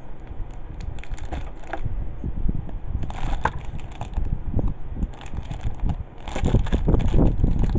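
Packaging being handled and unwrapped: irregular crinkling and rustling, getting busier and louder near the end.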